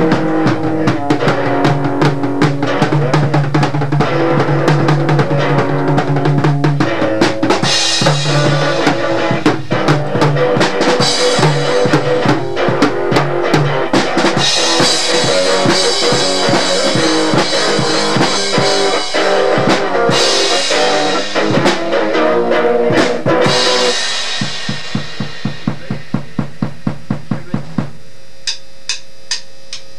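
A drum kit pounds away under held pitched notes from another instrument in a loose, noisy jam. About six seconds before the end the held notes drop out and the drums carry on alone with quick hits.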